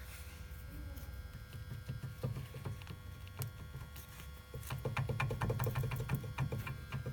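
Rear brake calipers of a 2011 Mitsubishi Lancer X knocking irregularly over small bumps, over a steady low rumble. The knocks start about two seconds in and get louder past the middle. It is the known Lancer X caliper knock, from play in the caliper guide pins.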